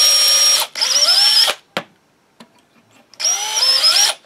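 DeWalt cordless drill with an eighth-inch bit boring into wood end grain, run in short bursts: a high whine that rises as it spins up, stops, starts again briefly, then after a pause of about a second and a half runs once more near the end. The bit is being run in and out of the hole to clear wood dust from its flutes.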